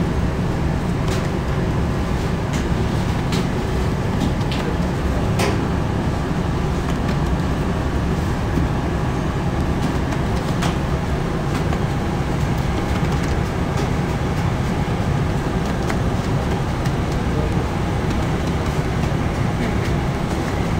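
Steady low rumble of bakery machinery, with a few sharp clicks and knocks, the clearest about five seconds in.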